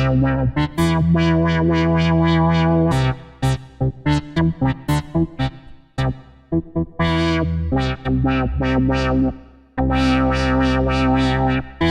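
Expressive E Osmose 49 keyboard synthesizer being played: held chords, then a run of short detached notes in the middle, then held chords again.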